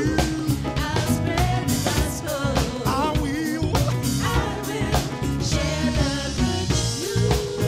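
Live gospel band music: drum kit, electric bass guitar and grand piano playing, with vocalists singing wavering held notes over them.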